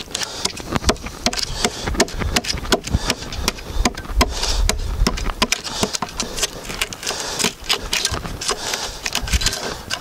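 Hammer striking a steel chisel again and again, chipping bits of embedded rock out of a sawn log: a run of sharp, irregular metallic knocks, about two to three a second.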